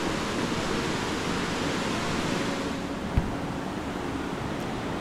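Steady rushing of water, a rain-swollen stream or falls, with a single low thump about three seconds in.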